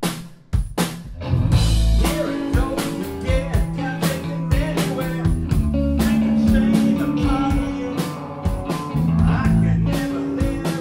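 Live rock band playing: electric guitar, bass guitar and drum kit. A few drum hits sound alone, then the full band comes in about a second and a half in.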